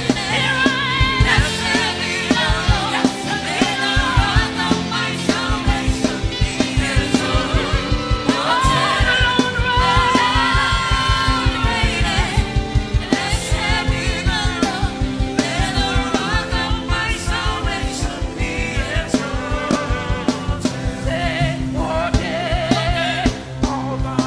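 Gospel worship music: singing over a band with a fast, steady drum beat.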